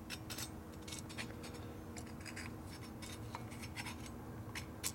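Light, scattered clicks and scrapes of a hand tool being worked into the port of a ported Harley-Davidson Twin Cam cylinder head, over a faint steady hum.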